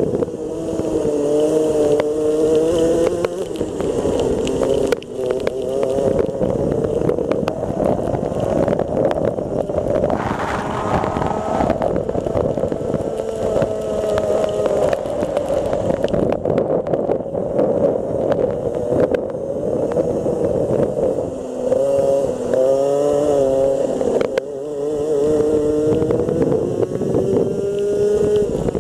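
Rotax Max 125cc single-cylinder two-stroke kart engine heard onboard, revving up and down as the kart slows for corners and accelerates out, its pitch falling and rising several times. A steady rush of wind and spray noise runs underneath.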